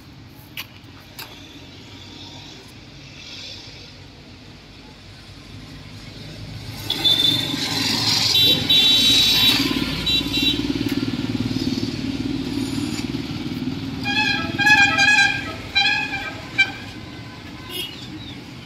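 Street traffic: a motor vehicle passes with a swelling rumble, with short high beeps as it goes by. Then a vehicle horn honks several short toots.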